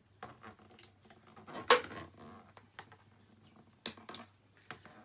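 Metal clicks and clinks of two pairs of needle-nose pliers working a wire into a Z-bend, with a sharper clink nearly two seconds in and another just before four seconds.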